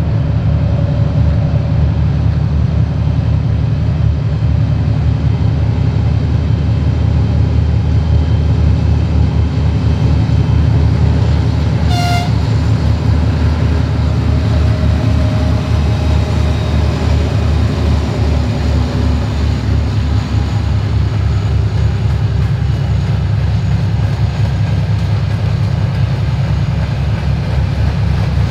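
Twin-section 2TE10-series diesel locomotive with 10D100 two-stroke opposed-piston engines working hard under load, a loud deep drone as it hauls a freight train past. One very short horn toot about halfway through; in the second half a quick, even beat comes in as the locomotive and hopper wagons roll by.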